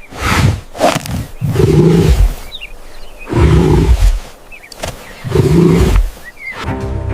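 A large animal's deep roars, four of them about two seconds apart, each lasting about a second, with faint high chirps between them.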